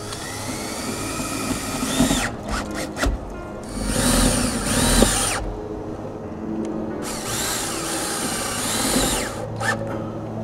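Cordless drill driving fasteners through a solar panel frame into its mounting brackets, its motor whine rising and falling in pitch with each trigger pull, in several short runs.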